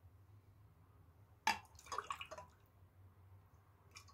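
Short clinks and liquid glugs of a glass of milk being handled, in a brief cluster about a second and a half in, with one small click near the end.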